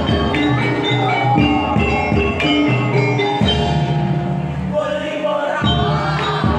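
Gamelan music: metallophones struck in a steady repeating pattern over low sustained gong-like tones.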